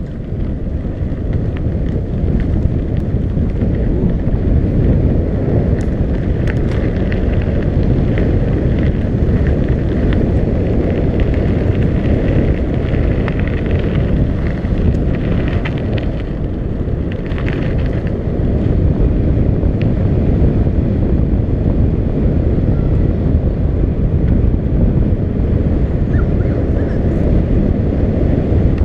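Wind buffeting the microphone of a bike-mounted camera on a fast downhill ride: a steady, loud, low rumble. Scattered clicks and rattles come through, most of them near the middle.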